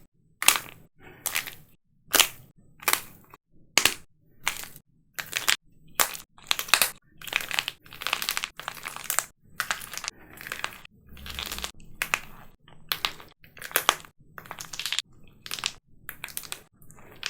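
Dried plaster clay being cracked and crushed: a run of sharp, crunchy cracks, about one a second, each trailing off in a short crumble, with longer grinding crunches around the middle.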